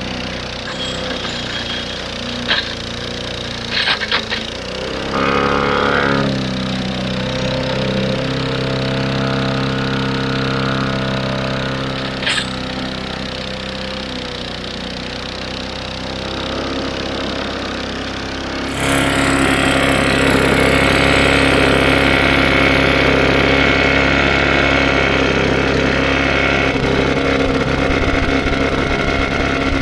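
Briggs & Stratton 125cc lawnmower engine running, with a few sharp clicks near the start and its speed rising after about five seconds. About two-thirds of the way through it abruptly turns louder and harsher.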